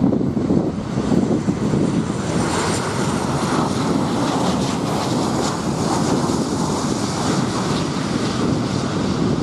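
Boeing 737-800's CFM56-7B turbofan engines on a landing approach as the airliner passes close by and flares over the runway. A steady jet rumble, with a high hiss that swells about a third of the way in as it goes past.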